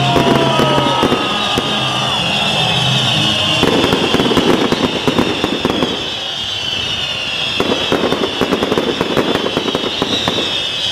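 Fireworks shooting sparks with a steady hiss and dense rapid crackling.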